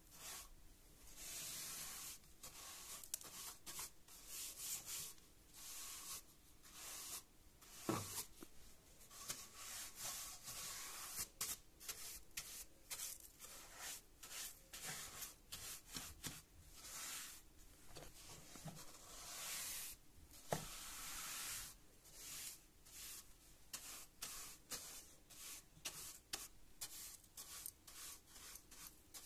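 Paint brush sweeping dust and debris across stair treads in many short, repeated strokes, a soft dry bristle swishing. A light knock comes twice, about 8 and 20 seconds in.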